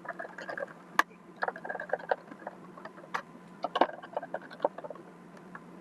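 Light clicks, ticks and small rattles of plastic robot-vacuum parts being handled during disassembly, with a sharp click about a second in and another about three seconds in, over a faint steady hum.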